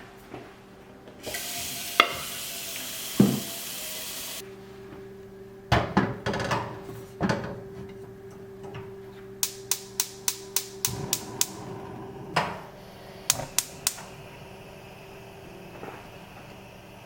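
Kitchen work sounds over a steady low hum: a hissing rush of about three seconds from about a second in, then clattering of dishes and utensils, and a quick run of about ten sharp clicks about ten seconds in.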